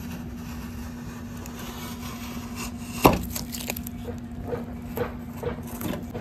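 Handling noise from working a fiberglass part on its mold: one sharp knock about three seconds in, then a few lighter taps and clicks, over a steady low hum.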